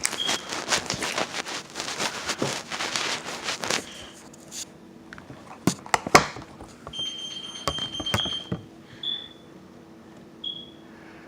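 Slime being squeezed and stretched by hand, giving a dense run of wet crackles and pops for about four seconds, then a few sharp clicks. Later come a high, steady beep-like tone lasting about a second and two shorter high tones.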